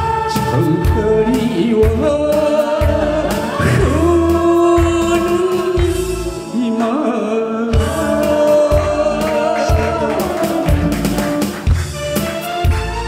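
A man singing a Korean trot song into a handheld microphone over amplified backing music with a steady beat.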